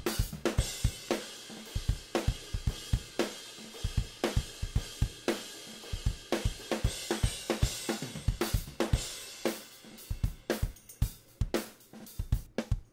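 Raw, unprocessed multitrack recording of a pop-punk drum kit playing back: close-miked kick and snare with the overhead mics, and no sample reinforcement. It is a steady beat of hard, consistent hits under a wash of cymbals.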